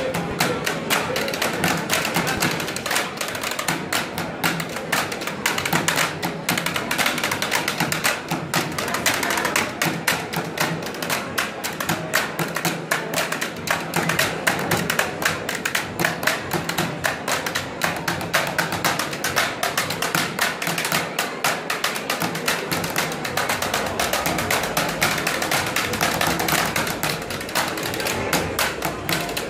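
A group drumming with drumsticks on plastic hockey helmets mounted on stands and on an orange plastic water cooler: a fast, steady rhythm of sharp, closely spaced stick strikes.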